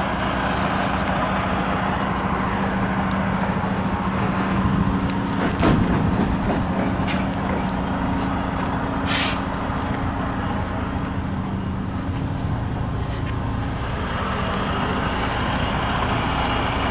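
Diesel semi-truck running steadily at low speed as it pulls a shipping container past, with a short air-brake hiss about nine seconds in.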